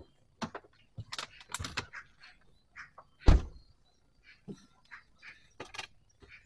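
Handling noises: a string of irregular knocks, clicks and rustles, with one heavy thump about three seconds in.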